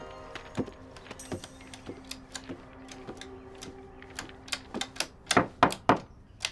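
Irregular sharp clicks, a few a second, over a low steady drone. The clicks come louder and quicker about five seconds in.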